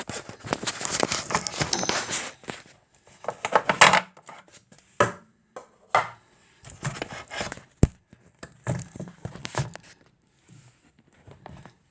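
Irregular rustling, crinkling and scraping handling noise as a tablet used for recording is being positioned and adjusted, with scattered clicks and one sharp knock about eight seconds in.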